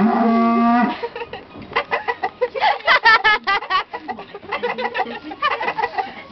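Chickens clucking in a quick run of short calls from about two seconds in, loudest around three seconds in. Before that, a long low moo ends about a second in.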